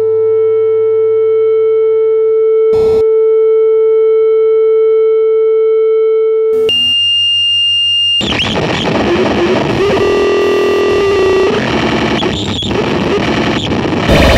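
Experimental noise music. A steady electronic drone tone holds for about six seconds, broken once by a brief click. It switches to a higher, thinner tone, and about eight seconds in it gives way to dense, harsh distorted noise.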